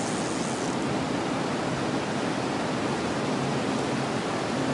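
Steady rush of fast, turbulent river water flowing out below a dam.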